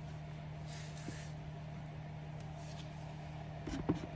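A steady low machine hum, with a brief hiss about a second in and a short clatter of knocks near the end.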